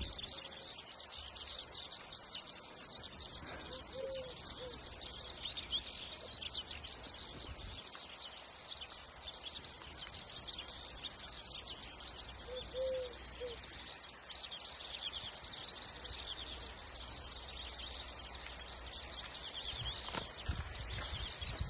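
A steady chorus of many small birds chirping. A cat gives two short, soft meows, about four seconds in and again near thirteen seconds.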